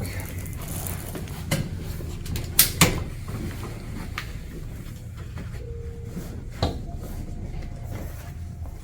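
A few sharp knocks and clicks over a low steady background as a patient rolls onto the stomach on a padded chiropractic table and the table is set, with two loud knocks close together about two and a half seconds in.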